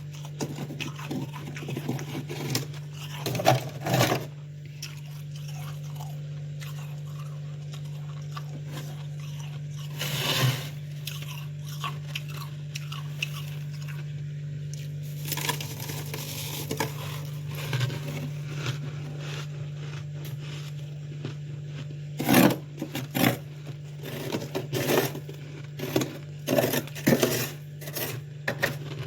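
Freezer frost being bitten and crunched close to the microphone, in crisp bursts with pauses between, getting dense in the last several seconds. A steady low hum runs underneath.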